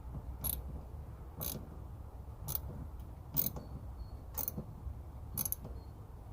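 Sharp mechanical clicks repeating about once a second over a low, steady hum.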